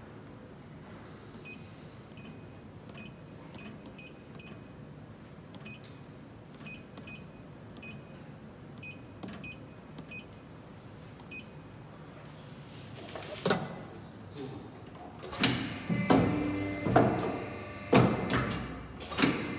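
Touchscreen control panel of a hydraulic program-controlled paper cutter beeping at each key press: about sixteen short, high beeps, irregularly spaced, over the first ten seconds or so. From about thirteen seconds in there is a run of louder knocks and clatter.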